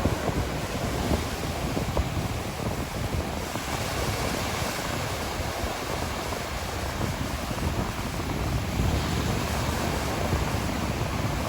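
Sea waves washing on a shore with wind, a steady rushing noise with a fluttering low rumble underneath. The wash grows brighter and hissier about three and a half seconds in.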